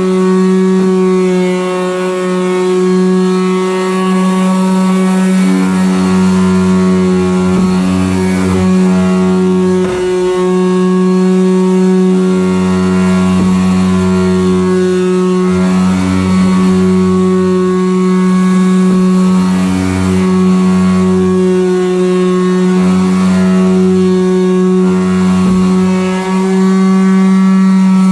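Handheld electric sander running at a steady high whine, stripping surface rust off a truck frame. A lower grinding sound comes and goes in stretches of one to two seconds as the tool is worked against the metal.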